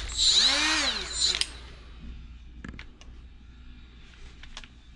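Brief trigger pull on a Milwaukee Fuel cordless die grinder: the motor whirs up in pitch and winds back down within about a second and a half. A few light knocks of the tool being handled follow.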